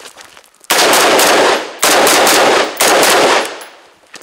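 Perun X16 rifle with a 3D-printed lower receiver firing three rapid strings of shots, starting about a second in and ending a little after three seconds, loud enough to clip. The rifle keeps cycling shot after shot, the printed lower holding up under fire.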